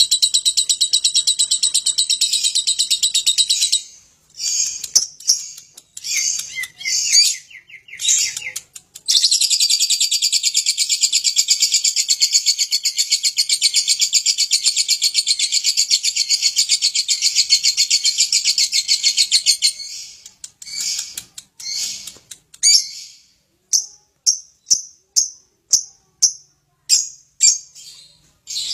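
Lovebird ngekek: a long, rapid chattering trill, high-pitched and continuous, that breaks into short phrases about four seconds in, resumes for about ten seconds, then gives way to single sharp chirps about twice a second near the end.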